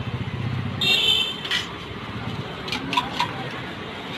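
Street traffic with a vehicle engine running low at the start, then a brief ringing metallic clang about a second in and a few sharp metallic taps near the end.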